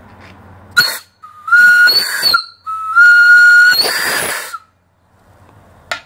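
Steam whistle on a small vertical fire-tube boiler blowing with steam up: a short puff, then two blasts on one steady note over a hiss, the second longer at about two seconds.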